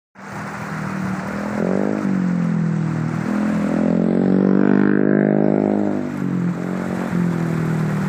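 A motor vehicle's engine running close by, a steady drone whose pitch rises and falls a few times and is loudest around the middle.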